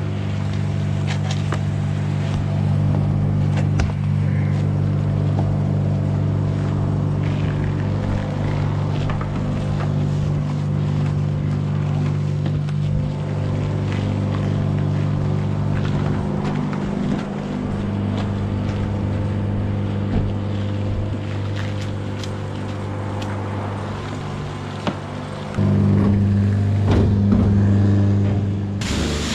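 Jet wash machine's pump motor humming steadily, with a mains-like hum, while a foam brush scrubs a motorcycle. The hum grows louder about 26 seconds in.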